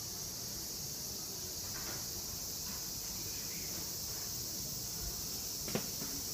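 Steady high-pitched insect chorus, with a single sharp knock near the end.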